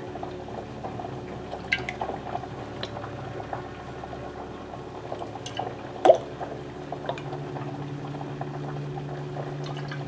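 Pot of salted water with potato pieces at a steady boil, with a steady hum under it, while olive oil drips from a spoon into a plastic cup. A few light clicks and drips; the sharpest click comes about six seconds in.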